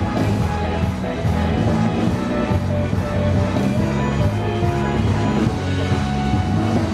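A rock band playing live at full volume, with a steady beat and a strong bass line.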